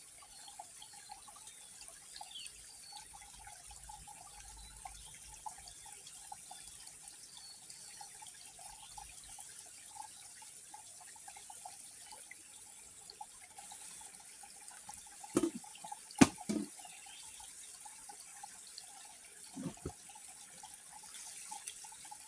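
Shallow water splashing and trickling around someone wading, with a few sudden louder sounds about fifteen to sixteen seconds in and again near twenty seconds.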